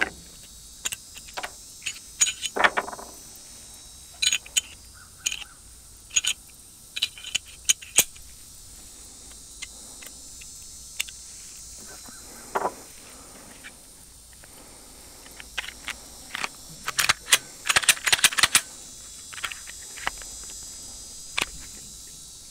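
Clicks and knocks of a Glock 19 pistol being handled and reassembled, its polymer frame, slide and barrel set down on a wooden table and fitted together as a drop-in barrel is installed. A quick run of clicks comes near the end.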